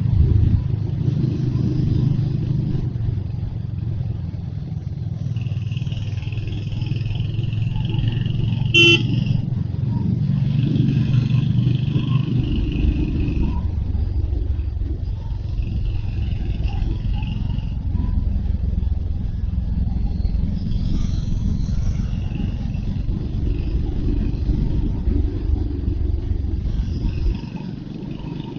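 Royal Enfield Hunter 350's single-cylinder engine running steadily as the motorcycle is ridden along a road, with a short horn toot about nine seconds in.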